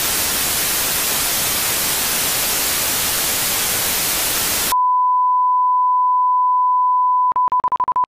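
Loud white-noise static hiss that cuts off abruptly about two-thirds of the way in and gives way to a steady 1 kHz test-tone beep. Near the end the beep stutters into a quick run of short beeps before stopping.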